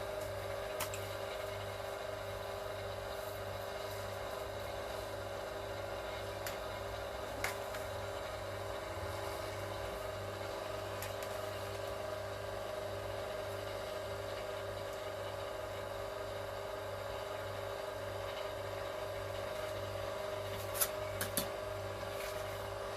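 Electric wire stripping machine's motor running with a steady hum, with a few faint clicks and a couple of sharper knocks near the end. The cable is slipping in the machine instead of being gripped and pulled through.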